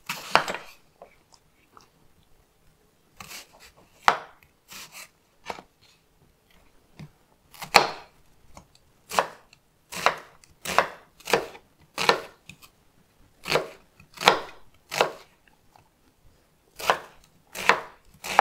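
Chef's knife chopping a peeled onion on a wooden cutting board: single sharp knocks of the blade meeting the board at an unhurried, uneven pace, about one every half second to a second, after a short pause early on.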